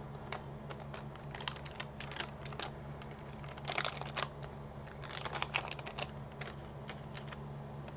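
Waxed-paper wrapper of a 1990 Topps football card pack crinkling and crackling as it is unfolded and the stack of cards is slid out. The crackles come in scattered bursts, busiest around the middle.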